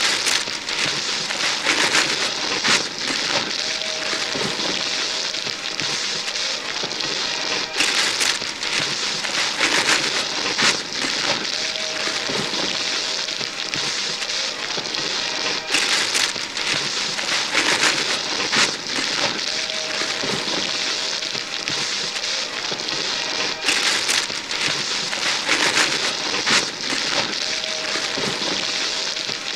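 Several people tearing and ripping wrapping paper off gift boxes: continuous crinkling and rustling paper broken by many sharp rips. The same stretch of tearing repeats about every eight seconds.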